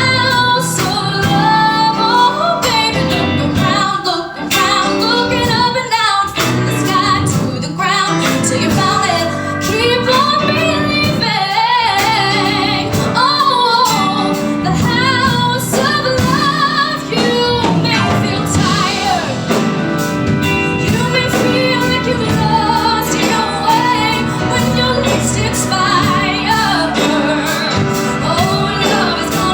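A woman singing a pop ballad live with instrumental accompaniment, her voice wavering through ornamented runs.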